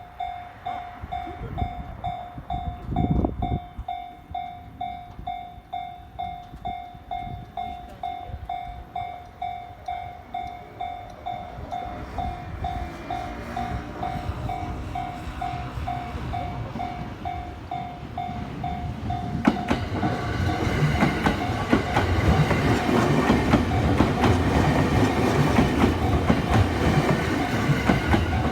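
Japanese level-crossing warning bell ringing, an electronic ding pulsing about twice a second. A 15-car E217 series electric train approaches, and from about twenty seconds in it runs past with loud clattering wheels over the still-ringing bell.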